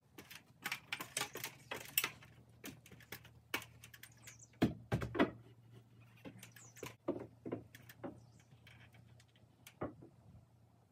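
Scattered, irregular light knocks and clicks of a person on a stepladder handling the wooden roof framing. A couple of heavier knocks come about halfway through.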